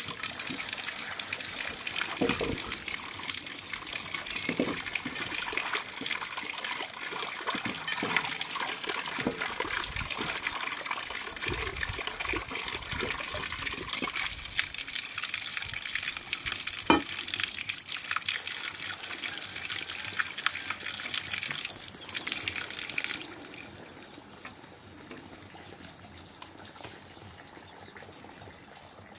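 Water running from a tap into a metal wok as it is scrubbed and rinsed in a concrete basin, with scattered knocks and scrapes of the pan. The running water stops suddenly about 23 seconds in.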